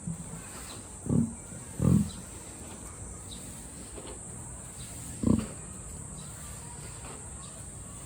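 Emu giving three short, low, burp-like grunts: one about a second in, another just after, and a third about five seconds in.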